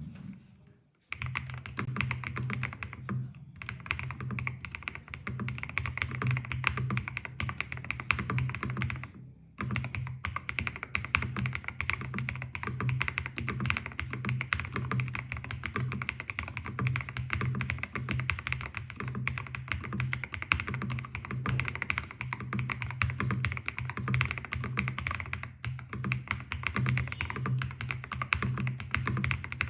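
Fast, continuous typing on an Ajazz AK820 Pro mechanical keyboard with Gift linear switches: a dense run of deep, thocky keystrokes. It starts about a second in and breaks off briefly near the nine-second mark.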